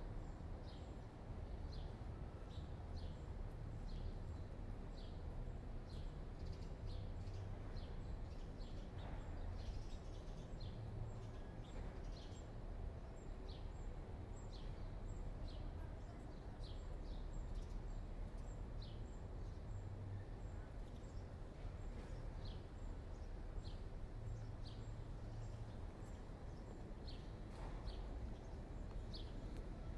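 Small birds chirping in the trees, repeated short high chirps about one or two a second, over a steady low city rumble.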